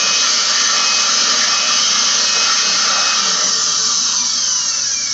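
Electric air blower running steadily with a loud rush of air through a hose nozzle, blowing dust out of an air conditioner's control box. Near the end its pitch falls and it starts to wind down.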